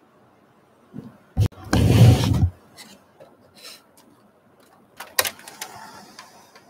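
Off-camera handling noises: a sharp click about a second and a half in, then a loud scraping rub lasting about a second, and a few more sharp clicks with light rustling near the end.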